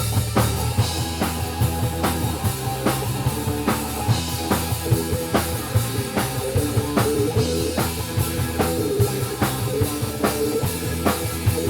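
Live rock band playing an instrumental passage, with a steady drum-kit beat, bass guitar and pitched lines from guitar, synth or sax.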